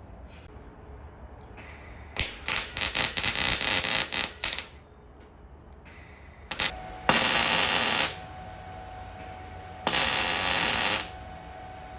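MIG welder tack-welding sheet-metal parcel shelf extensions into a car body. First a quick run of short crackling bursts, then two longer crackling bursts of about a second each, starting and stopping abruptly.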